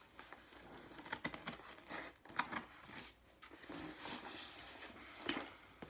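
Knife cutting through a cardboard shipping box, with faint scrapes, ticks and tearing as the cardboard is handled.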